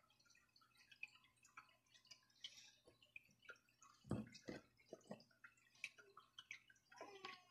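Near silence: room tone with faint scattered clicks and a few soft knocks.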